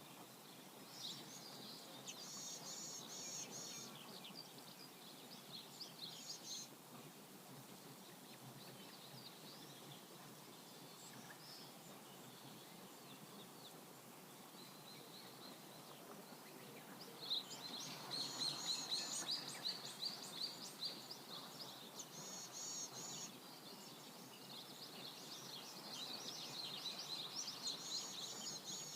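Small birds chirping in quick repeated series, on and off, busiest a little past the middle and again near the end, over a faint steady background hiss.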